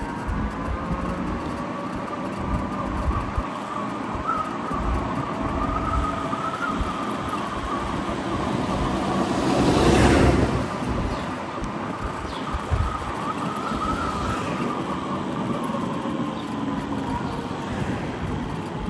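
Electric motorcycle's motor whine rising and falling in pitch as it speeds up and slows, twice, over a steady rushing noise. About halfway through, a louder whoosh swells and fades over about two seconds.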